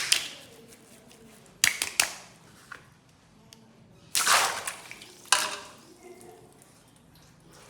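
A plastic ice pack bag full of coloured water being popped and torn open: a few sharp plastic cracks, and a longer rushing, splashy burst about four seconds in.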